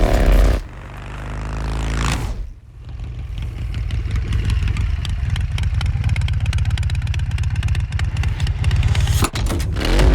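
Vintage custom Harley-Davidson V-twin motorcycle engines in a series of edited clips. It opens with a rev that falls away. From about three seconds in comes a steady run of rapid, even firing pulses, and near the end a brief break and another rev that rises and falls.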